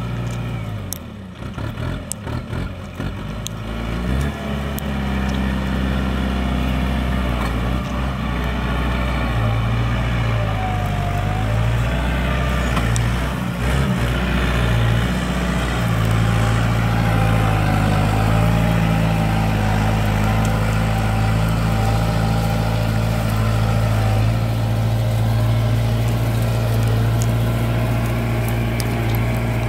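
Kubota M7040 tractor's diesel engine running steadily under load as it pulls a tined cultivator through the soil. The engine is unsteady for the first few seconds, then runs louder and more evenly from about halfway through.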